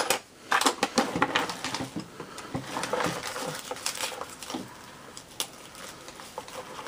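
Rummaging through small hard objects: a string of light clicks, knocks and rattles, most frequent in the first couple of seconds.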